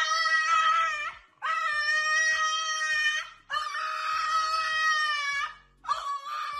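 A French bulldog howling with its head raised: long, steady-pitched howls with brief pauses between them, three whole ones and the start of a fourth.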